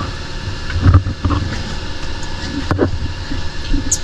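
Dive boat's engine running with a steady low rumble, with scattered knocks and clatter on board.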